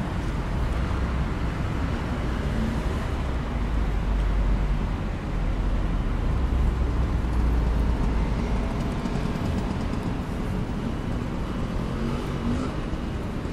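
City street traffic: a steady rumble and hiss of passing cars, swelling a little about halfway through.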